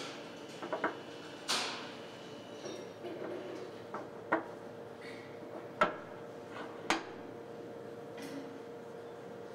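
A splined steel sleeve being fitted by hand onto a splined shaft, clinking metal on metal about five times, the loudest a little before six seconds in. The sleeve goes on at a slant, the kind of contact that damages the splines. A steady faint hum runs underneath.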